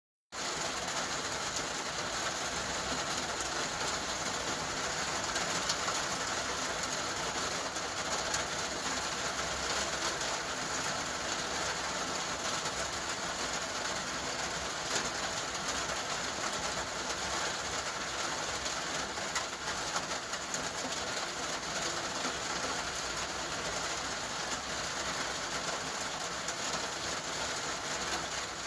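Steady rain falling, an even hiss with many faint drop ticks and no pauses.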